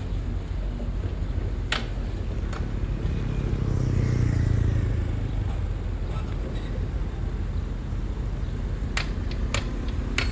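Heavy earthmoving machine's diesel engine running with a low, steady rumble that swells for a second or two about four seconds in, with a few sharp metallic clanks over it.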